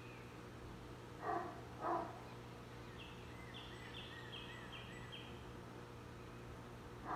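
Birds singing: one gives a run of about six quick, falling high notes midway through. Two short, loud animal calls come about a second apart early on, over a faint steady hum.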